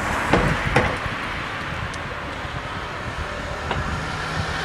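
Outdoor street ambience: traffic noise with wind buffeting the microphone, and a few sharp clicks in the first two seconds.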